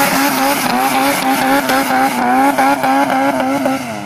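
Honda Civic's four-cylinder engine held at high revs for a burnout, its pitch wavering, over the hiss and squeal of the front tyres spinning and smoking. Just before the end the revs drop.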